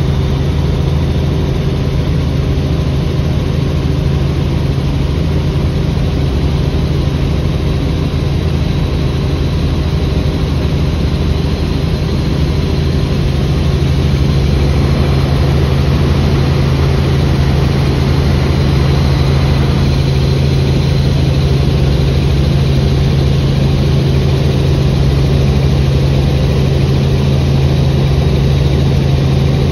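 Helicopter in flight heard from inside the cabin: a steady engine and rotor drone with a strong low hum and a faint high whine, growing slightly louder about halfway through.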